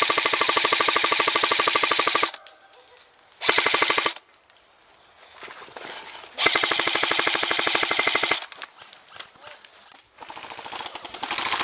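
Airsoft rifle firing rapid full-auto bursts: a long burst of about two seconds, a short one of under a second, then another of about two seconds. A fainter stretch of fire comes near the end.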